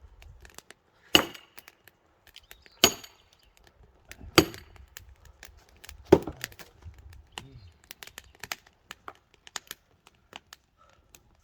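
An axe striking into a firewood log four times, one heavy blow about every 1.7 seconds, to split it, followed by scattered light knocks and crackles.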